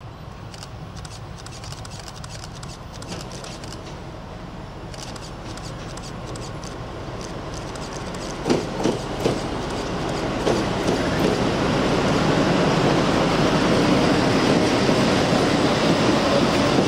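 PKP SU45 diesel locomotive approaching and passing, its engine and wheel noise growing steadily louder. About halfway through there are a few sharp clacks of wheels over rail joints.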